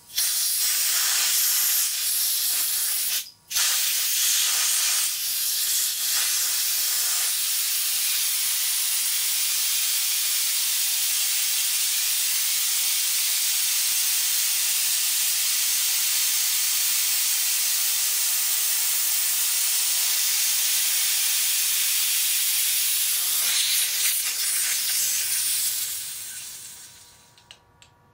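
High-pressure compressed air hissing out through a hand-opened valve as the pressurized line is vented. The flow cuts off briefly about three seconds in, then runs steady and dies away over the last few seconds as the pressure runs down.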